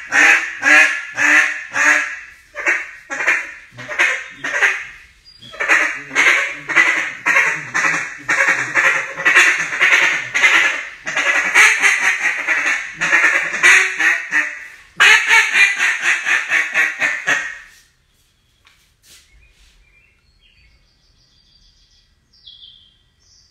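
Acrylic duck call blown in rapid runs of quacks, with short pauses between runs; the calling stops abruptly about eighteen seconds in, leaving only faint high chirps.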